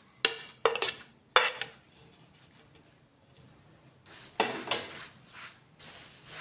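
Metal spoon clinking three times against a plate as chopped tomato is scraped off it. Then, about four seconds in, the spoon scrapes and stirs puffed rice around a steel bowl, with a dry rustling.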